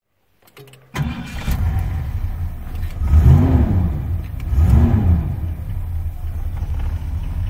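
1977 Ford LTD's V8 engine fires up about a second in. It is revved twice, its pitch rising and falling about three and a half and five seconds in, and runs at a steady idle in between and after.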